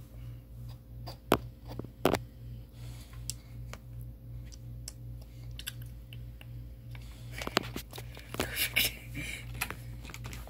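A steady low hum with a few isolated clicks, then a quick run of keyboard taps about three-quarters of the way through as typing begins.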